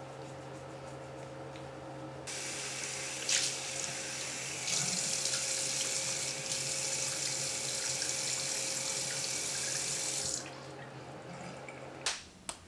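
Water running from a tap into a sink: turned on about two seconds in, opened up further a couple of seconds later, then shut off, with a faint click or two. A steady low electrical hum underneath stops with a click near the end.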